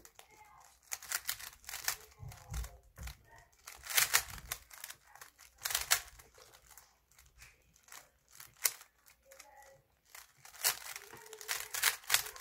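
Plastic 3x3 speed cube clacking as its layers are turned in quick runs of moves, with short pauses between the runs.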